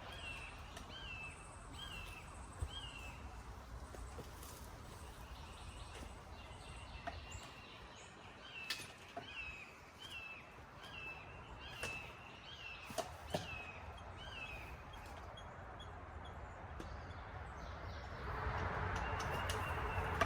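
A songbird singing one short whistled note over and over, about three notes every two seconds, in two runs. Near the end a steady hiss and low hum come up.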